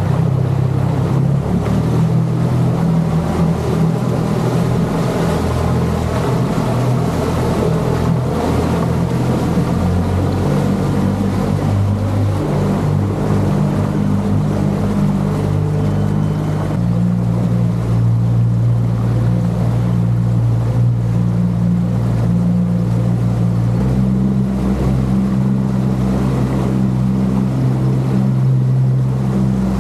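Boat motor running at speed while warming up, with water rushing past the hull and wind on the microphone. The engine note steps up slightly twice, about 17 and 24 seconds in.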